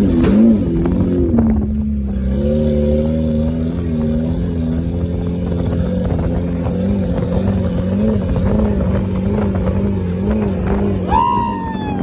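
Mid-mounted turbocharged Honda F20B four-cylinder running at a steady pace while driving over sand, heard from the open, windshield-less cabin; its pitch wavers slightly up and down. Near the end a short high-pitched tone falls in pitch.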